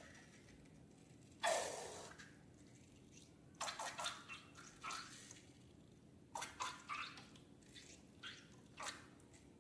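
Wet slime-making sounds: a louder splat about a second and a half in, then a run of short, irregular wet squelches and drips as the slime ingredients are handled.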